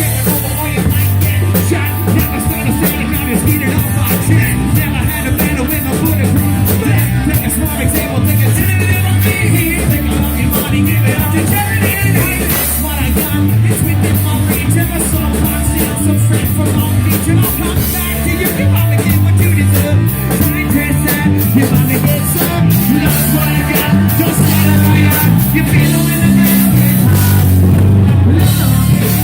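Live rock band playing loud, with drum kit, a pulsing bass line and singing.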